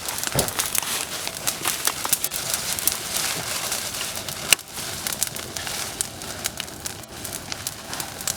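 Wood fire crackling, with irregular sharp snaps and pops, one louder snap about halfway through.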